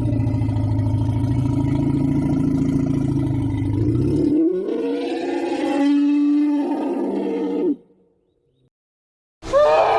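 Asian elephant calls: a long, rough, low roar for about four seconds that shifts into a higher, wavering call and stops suddenly. After a second and a half of silence, another rising call begins near the end.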